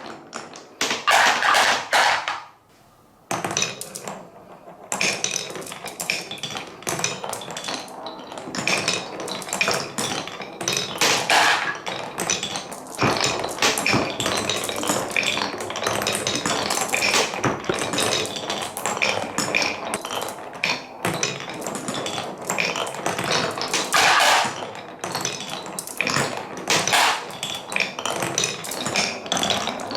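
Marbles rolling and clattering through a wooden Cuboro marble run, with a constant stream of clicks and knocks and a ringing tone. It drops off briefly about two to three seconds in, then picks up again and stays busy.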